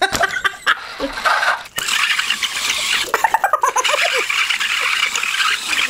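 Traxxas TRX-4 crawler's rubber tyres squealing and chirping against a wooden desk top as the electric motor drives the wheels, with a steady scrubbing hiss; the squeals waver in pitch and cluster about three seconds in.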